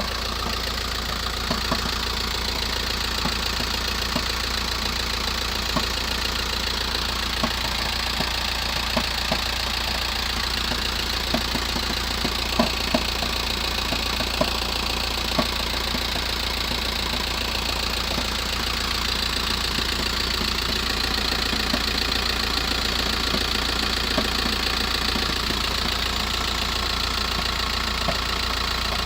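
VW T5 1.9-litre four-cylinder turbo-diesel idling, with irregular sharp knocks every second or two over the steady running. This is the knock it makes only from a cold start, which the owner puts down to the engine or gearbox.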